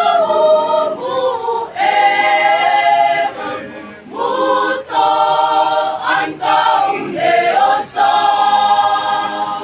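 A choir singing in several voices, in phrases separated by brief breaks.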